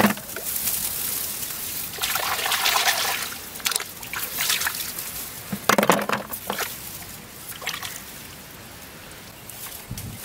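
Water sloshing and splashing as hands stir and scoop snails in a metal basin of water, with a few sharp knocks, loudest at the start and about six seconds in.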